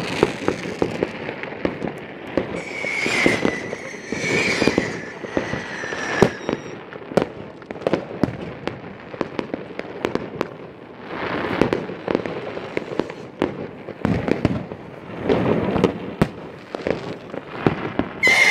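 Fireworks going off all around: a constant stream of sharp bangs and cracks, with whistling rockets that sound between about two and six seconds in, each whistle falling slightly in pitch.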